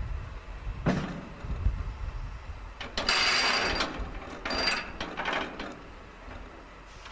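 Railway passenger car rolling slowly during shunting: a metallic clank about a second in, then a hiss lasting about a second around the middle, followed by two shorter hissing bursts from the car's running gear and brakes.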